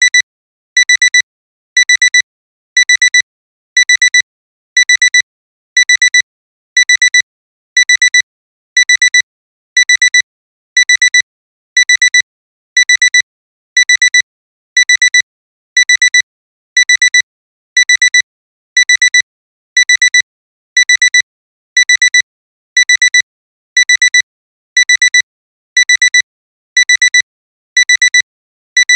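Alarm clock's electronic alarm beeping: a high-pitched tone in quick clusters of pips, repeating evenly about once a second, signalling that the timer has run out.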